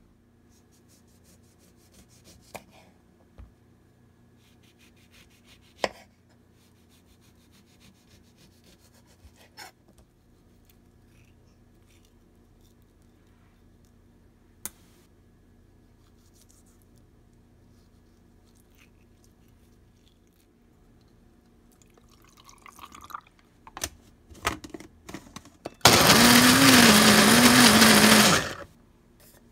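Electric countertop blender running briefly, blending orange segments with orange juice; it stops and starts again just at the end. Before that, only scattered light knocks and clicks from handling a bowl and fruit.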